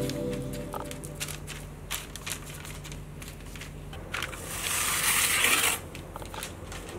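Light taps and rustles of hands shaping soft dough on parchment baking paper, with a louder crinkling of the paper for about a second near the middle; a fading music note trails off at the start.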